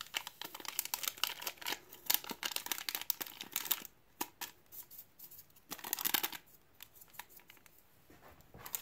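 Yeast packet crinkling and rustling as dry yeast is shaken and tapped out of it, in a run of small crackles with a pause partway and quieter near the end.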